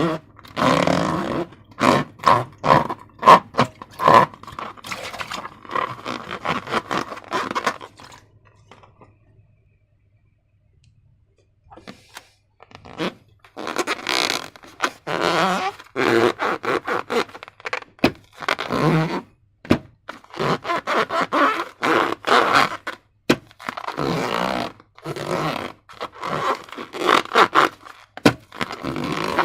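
Slime being worked by hand, in many short irregular scraping and squishing strokes, with a pause of about four seconds near the middle.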